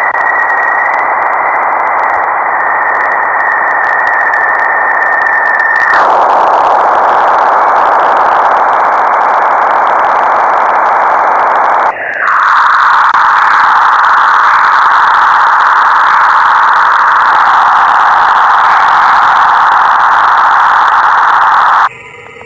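Electronic 'sound of space' recording: a loud, steady hiss concentrated in the middle range, with a thin high whistle held over it for the first six seconds. It changes abruptly twice, about six and twelve seconds in, and after the second change it sits lower and denser. It cuts off just before the end.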